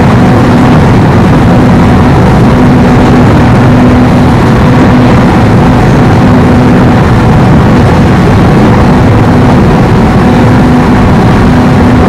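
Inside a JR West 103 series electric commuter train running at speed between stations: a steady rumble of wheels on rails, with a low hum that fades in and out.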